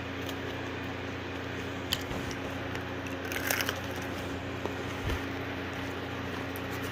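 A steady low hum, with a few faint clicks and a brief light rustle about three and a half seconds in.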